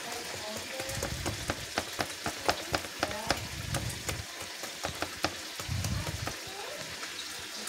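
A fork scraping through soft cooked eggplant flesh and clicking against a plastic cutting board: a run of sharp clicks, about three a second, from about a second in until about five seconds in, with a few dull knocks, over a steady hiss.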